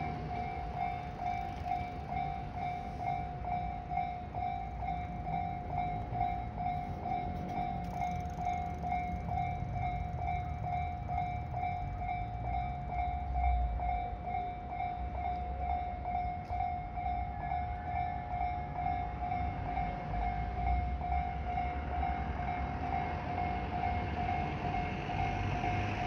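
Japanese railway level-crossing alarm ringing with a rapid, even string of electronic dings at one pitch, over a low rumble.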